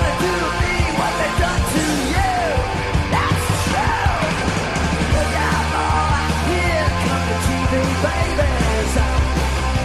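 Punk rock band demo recording: distorted electric guitar, bass and drums playing steadily, with yelled vocals over them.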